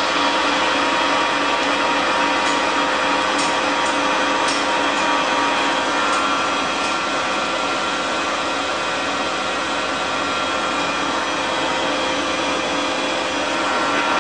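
Steady whirring hum of running machinery, with several steady tones in it and a few faint ticks a few seconds in.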